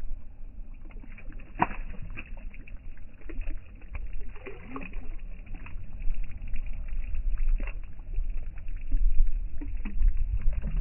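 Small fishing boat on the water: a low, steady rumble of wind on the microphone and water, stronger in the second half, with scattered short knocks and clicks.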